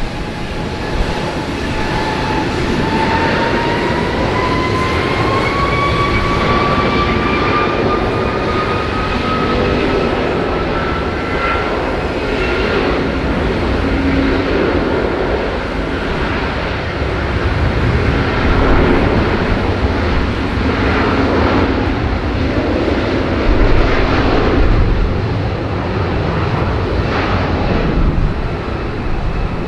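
Jet airliner engines spooling up, a whine rising steadily in pitch over about twelve seconds, then running at high thrust with loud, steady engine noise.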